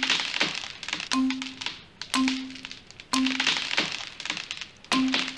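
A hard-boiled egg's shell being cracked: five sharp cracks, about a second apart, each with a short low ringing tone after it.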